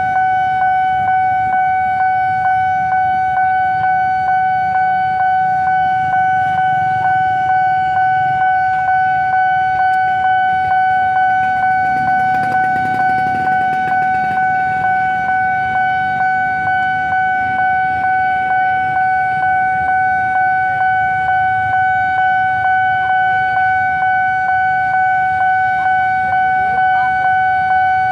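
Railroad level-crossing warning bell ringing without a break: one high electronic ding repeated about one and a half times a second, the signal that the crossing is closed for an approaching train. Motorcycle engines idle underneath.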